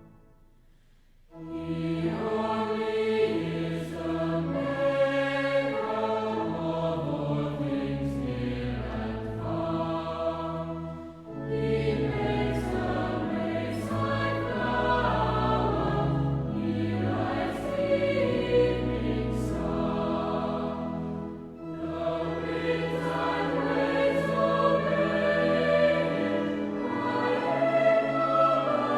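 Choir singing church music, starting about a second in after a brief silence, with short breaks between phrases.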